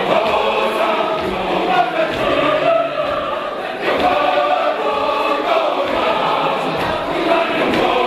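Large mixed choir of women and men singing in several parts at once, with held notes that shift every second or so.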